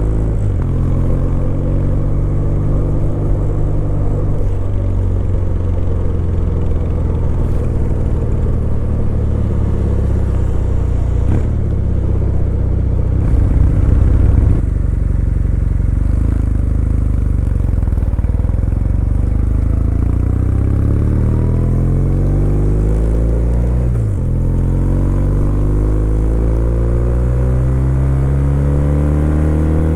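Kawasaki W800's air-cooled parallel-twin engine pulling under way, its pitch rising as it accelerates, with a gear change about 24 seconds in and a short louder rush of noise about halfway through.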